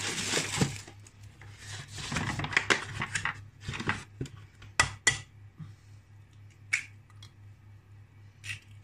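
Egg box rustling as it is handled and opened, then an egg knocked against a stainless steel saucepan and cracked open, heard as a few sharp clicks and taps, over a steady low hum.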